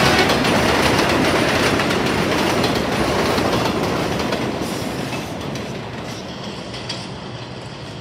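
A New York City subway train of vintage cars running past on elevated track, wheels clattering over the rails, growing steadily fainter as it pulls away.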